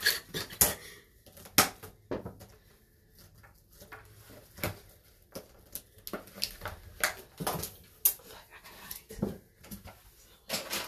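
Clicks, knocks and crackles of a clear plastic clamshell cake container being handled on a bathroom countertop, the phone being set in place, and some soft laughter.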